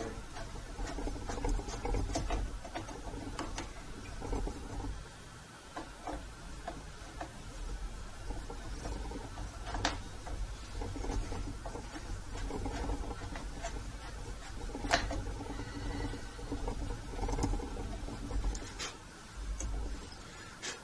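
Screws being driven and tightened into a miter saw's plastic housing: scattered small clicks, taps and scrapes of the tool and plastic parts being handled, with a few sharper ticks.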